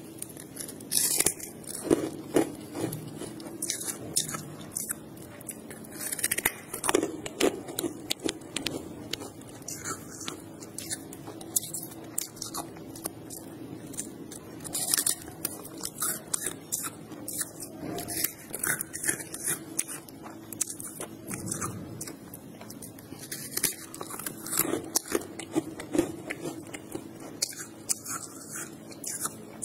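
A person biting and chewing chunks of freezer frost close to the microphone: many irregular, crisp crunches with brief pauses between bites.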